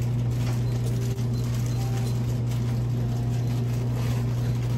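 Steady low machine hum, with a few faint clicks over it.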